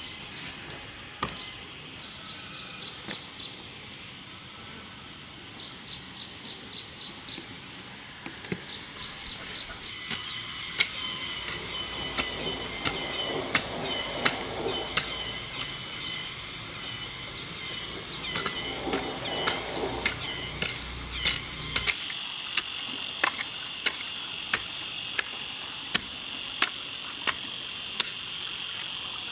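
Sharp knocks, scattered at first and then about once a second, over a steady high insect trill.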